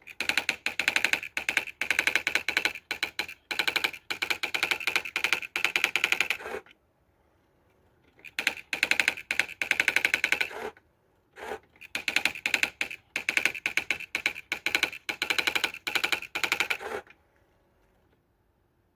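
Olivetti ET Personal 55 electronic daisy-wheel typewriter printing its automatic demo. The daisy wheel strikes characters in fast, even runs of clicks, with two short pauses, and it stops about 17 seconds in.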